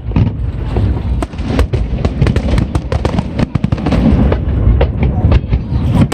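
Aerial fireworks display in full swing: a continuous low booming with many sharp crackling bursts coming in rapid succession.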